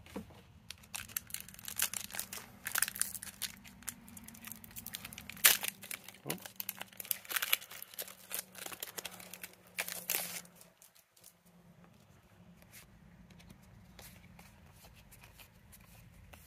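Foil wrapper of a Pokémon card booster pack being torn open and crinkled by hand, a run of crackling tears and crinkles that stops about ten seconds in, leaving only faint handling.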